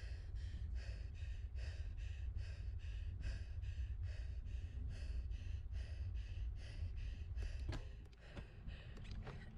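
Riding noise picked up by a bicycle-mounted camera: a steady low wind rumble with a rhythmic hissing pulse about two or three times a second, broken by a few sharp clicks near the end.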